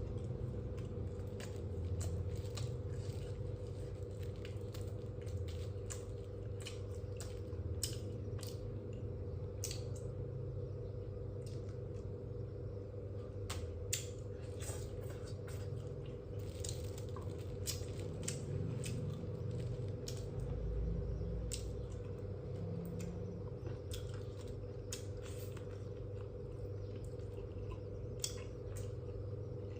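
A person eating by hand: chewing and the small clicks and squishes of handling food, scattered irregularly, over a steady background hum.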